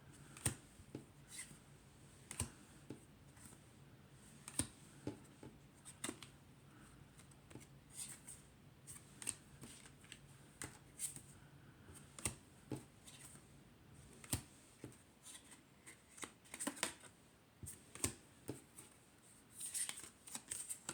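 Thick-cardstock tarot cards being handled and laid down one at a time, making a quick string of faint, short card slaps and clicks.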